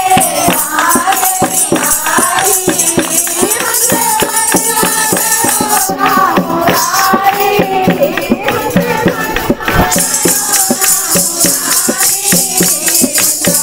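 Women singing a Hindi Krishna bhajan together through microphones, to hand clapping, a drum and a jingling shaker keeping a steady beat.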